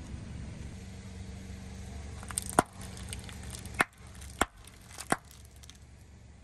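A car tyre rolling over chocolate sachet packets on concrete, crushing them: a few sharp cracks and pops, the loudest about two and a half seconds in and three more at roughly half-second to one-second gaps, over the car's low steady hum.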